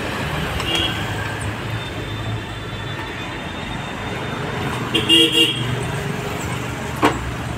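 Steady road traffic noise, with a vehicle horn giving a short toot about a second in and a louder, half-second toot about five seconds in. There is a single sharp knock near the end.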